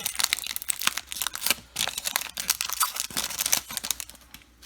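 Foil wrapper of a trading card pack being torn open and crinkled: a dense run of crackling that dies down near the end.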